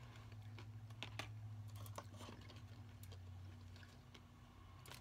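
Faint chewing of a piece of white chocolate with toffee: scattered small crunching clicks a few times, over a low steady hum.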